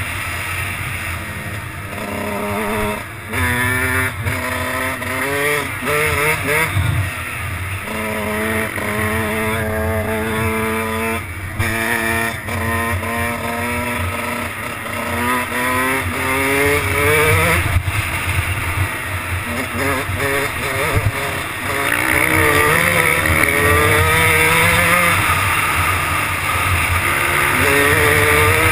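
Kawasaki dirt bike engine heard close up while riding, accelerating again and again, its pitch climbing and then dropping back many times.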